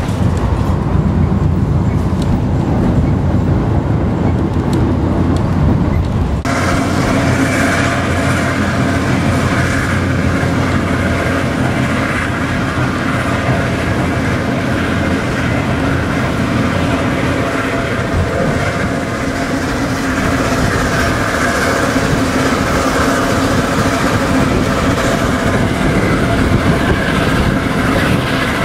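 A Zillertalbahn narrow-gauge train running along the line, heard from aboard as a steady rumble of wheels on the rails. About six seconds in the sound changes abruptly to a brighter, noisier running sound with less low rumble.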